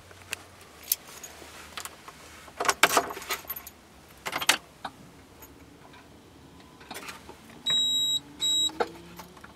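Ignition key jangling on its ring and clicking in the GAZ Gazelle's ignition switch, with several sharp clicks. Near the end, two short high electronic beeps come from the dashboard as the ignition is switched on, with a faint rising whir beneath them, just before cranking.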